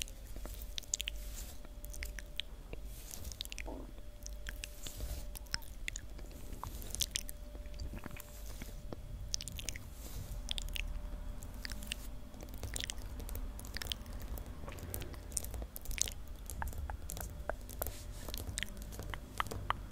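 Fingernails tapping quickly and irregularly on a hard floor, a dense stream of sharp clicks, mixed with close-miked wet mouth sounds.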